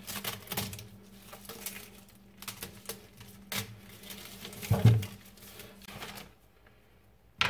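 Plastic turkey wrapper being cut open and peeled off a raw turkey: irregular crinkling and rustling of the plastic, with one louder dull thump a little under five seconds in.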